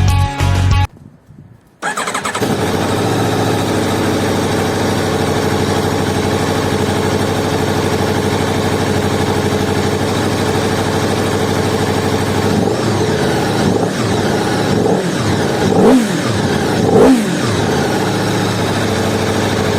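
Aprilia Tuono V4 Factory 1100's V4 engine running hard at steady high revs. Its pitch dips and climbs several times in the last few seconds.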